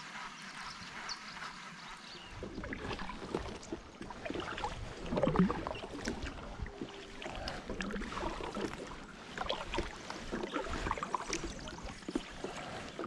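Kayak paddle strokes: a double-bladed paddle dipping and pulling through calm river water, with irregular splashes and drips starting about two seconds in. The loudest splash comes about five seconds in.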